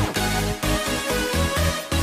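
Electronic dance music with a pulsing, chopped bass beat.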